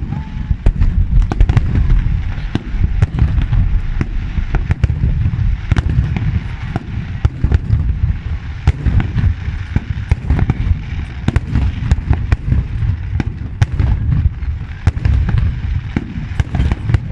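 Fireworks display: aerial shells bursting in rapid succession, a continuous low booming rumble with many sharp cracks throughout.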